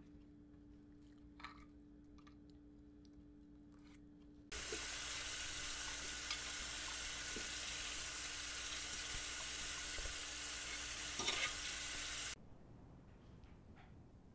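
Water running from a kitchen tap into a sink. It starts abruptly about four seconds in, with a few clinks near the end, and cuts off suddenly.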